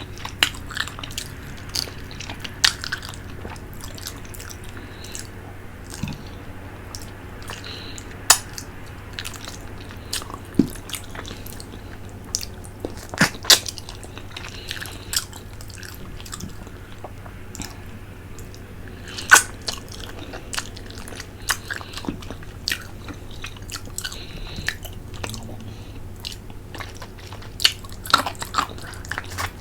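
Close-miked eating: sucking and chewing on a fish head from tinola fish soup, with sharp smacks and crunches scattered irregularly throughout.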